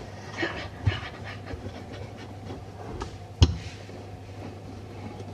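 Wooden rolling pin rolling out shortcrust pastry dough on a tabletop: soft rolling and knocking, with one sharp knock about three and a half seconds in.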